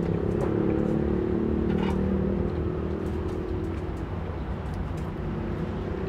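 Steady background noise of motor traffic: a low engine drone whose pitch drifts slowly, with a few faint clicks over it.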